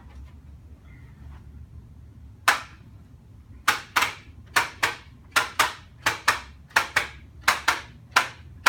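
Sharp slapping strikes during a standing chiropractic treatment: one on its own, then a quick even run of strikes in pairs, about one pair every 0.7 seconds.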